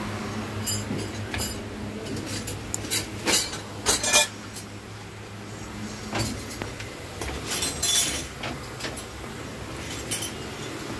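Metal parts clinking and clanking, a dozen or so irregular clinks, the loudest about four seconds and eight seconds in, over a steady low hum.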